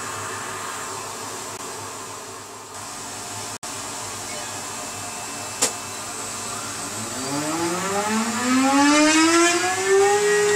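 Workshop dust extractor (cyclone vacuum) running steadily. About seven seconds in, the CNC router's spindle spins up with a rising whine that levels off at a steady pitch near the end. A single sharp click a little past halfway.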